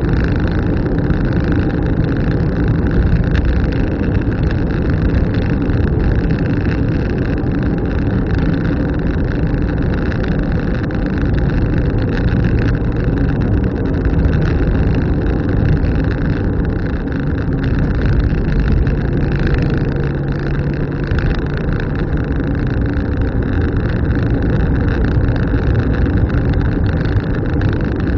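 Car driving along a road: steady engine and road noise, with a faint engine hum holding steady for a few seconds midway.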